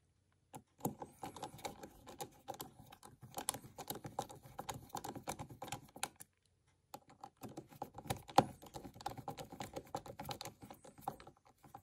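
Small screws being driven into a plastic gear differential case with a precision screwdriver: fast, irregular faint clicking and ticking, with a brief pause a little after six seconds in. The screws are being run down a little at a time in rotation to clamp the ring gear evenly.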